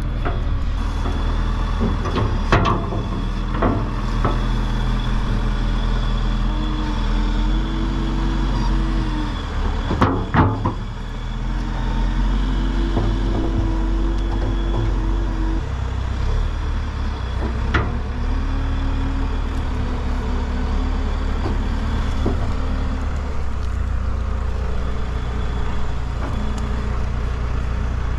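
Farm tractor's diesel engine running steadily. Its note rises and holds for a few seconds three times, and there are a few sharp knocks.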